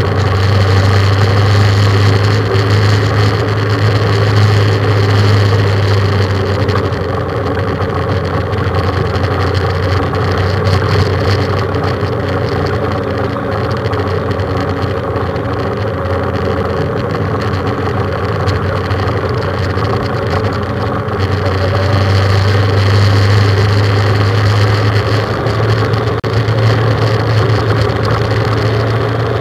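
Motorcycle engine running at a steady cruise as the bike rides along, heard from on board, swelling louder for a few seconds at the start and again in the last several seconds.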